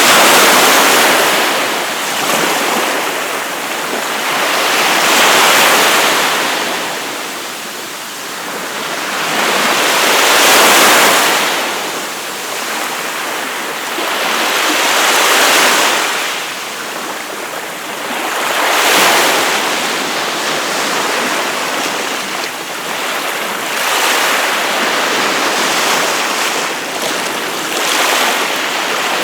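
Ocean waves breaking and washing up on a beach, the surf swelling and easing about every four to five seconds.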